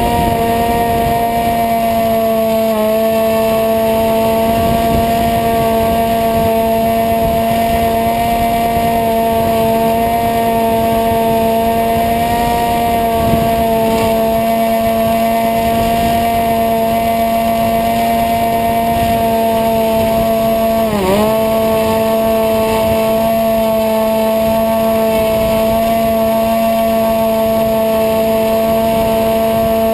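Multiplex EasyStar RC plane's electric motor and pusher propeller whining at a steady pitch in flight, heard close up from a camera mounted on the fuselage, with wind buffeting the microphone. About two-thirds of the way through, the pitch dips briefly and comes back up.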